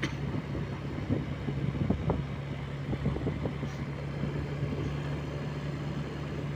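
Honda Scoopy scooter's small single-cylinder engine running steadily while riding, with road noise and scattered small knocks.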